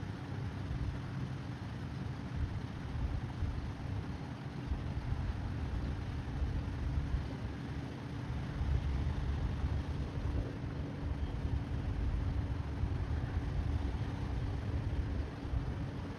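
Diesel-electric freight train (BNSF westbound manifest) on the move: a steady, fluctuating low rumble with a faint steady whine above it.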